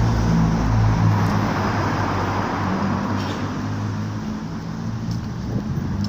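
Road traffic: a passing vehicle's engine hum and tyre noise, fading away over the first few seconds.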